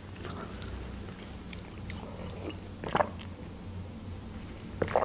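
Soft mouth sounds of a person chewing, then sipping a drink from a mug, with a short gulp near the end.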